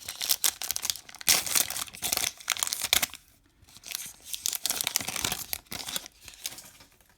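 Baseball card pack wrapper being torn open and crinkled. It gives dense crackling for about three seconds, a short lull, then more crinkling that fades near the end.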